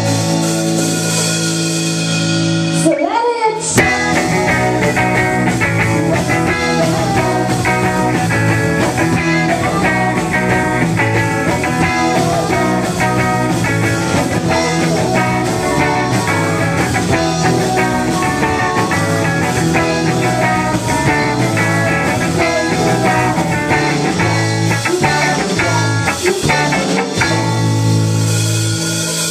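Rock band playing live: electric guitar, bass guitar and drums, with a woman singing. About three seconds in the band drops out briefly under a rising slide, then comes back in full.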